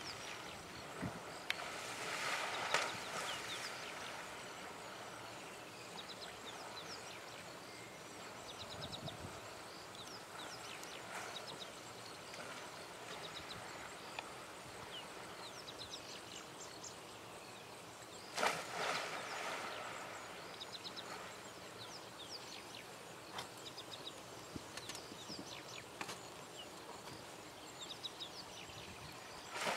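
Bull African elephants wading and splashing in a dam, with a loud splash of water about two seconds in and another about two-thirds of the way through. Between the splashes there is a steady outdoor hiss with faint high chirping.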